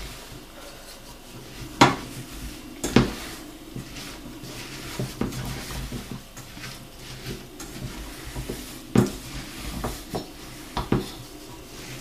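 Wooden spoon stirring a thick oat and Nutella mixture in a stainless steel saucepan, rustling through the oats and knocking against the metal sides. The loudest knocks come about two and three seconds in, then again around nine and eleven seconds.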